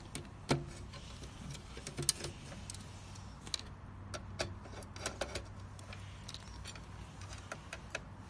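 Irregular small clicks and taps of a screwdriver working the screws that hold a circuit board, with wires and metal parts being handled.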